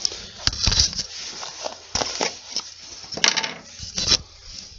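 Plastic screw-on lid of a tub being twisted off and the lid set down on a wooden workbench: a series of sharp clicks and knocks with scratchy plastic handling between them.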